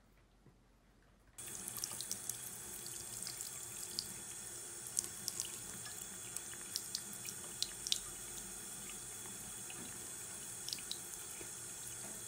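Bathroom faucet running a thin stream into a ceramic sink, starting abruptly about a second and a half in, with irregular small splashy ticks as a cat laps at the stream.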